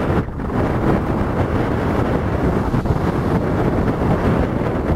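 Strong wind buffeting the microphone aboard a boat, a dense gusting rumble with a brief dip just after the start.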